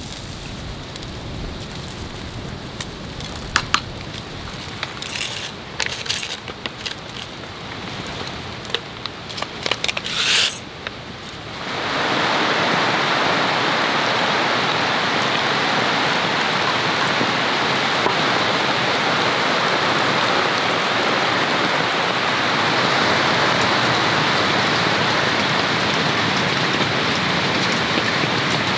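Rain falling, at first with a few sharp clicks and clinks of metal tongs handling food; about twelve seconds in, a steady, louder hiss of heavy rain takes over.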